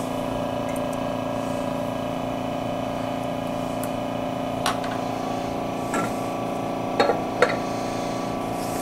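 Glass chamber cylinder of a sputter coater handled and set back onto its metal base, giving a few light knocks of glass on metal, three close together near the end. A steady hum runs underneath.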